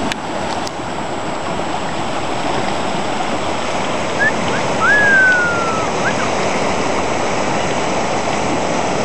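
Swollen snowmelt river in flood, fast-moving water giving a steady rush. About halfway through, a short whistle-like tone slides slightly down in pitch over the water noise.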